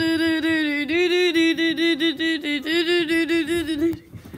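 A voice calling on one steady, high note, chopped into quick repeated syllables, then stopping about four seconds in.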